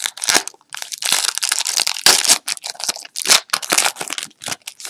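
Trading cards being handled and shuffled: irregular crinkling and rustling bursts that stop right at the end.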